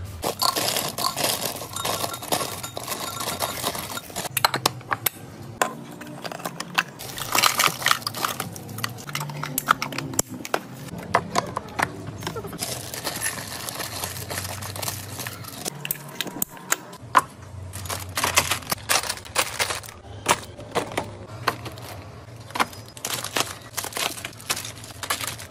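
Plastic-wrapped sweets and snack packets crinkling as they are handled, with many sharp clicks and clatters as they drop into glass jars and containers being set down.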